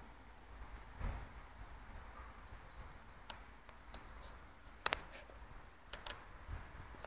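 Faint outdoor background with a bird chirping now and then in short, falling high chirps, and a few sharp clicks, the loudest about five seconds in.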